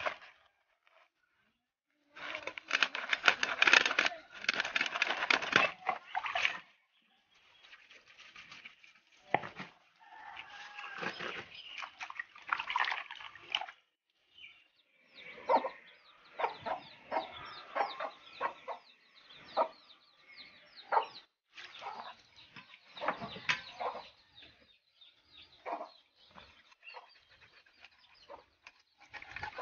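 Fish being scaled and cut against the blade of an aruvamanai, a floor-mounted curved kitchen blade: rasping scraping strokes in bursts, the loudest run a few seconds in, then shorter scrapes and clicks.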